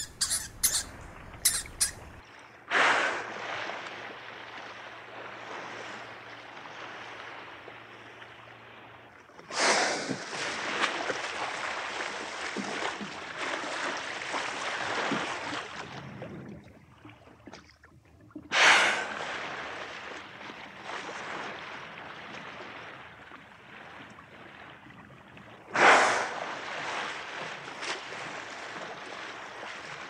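A prairie dog's rapid high calls, about five a second, for the first second and a half. After that, a rushing noise without pitch that starts suddenly four times and fades away between starts.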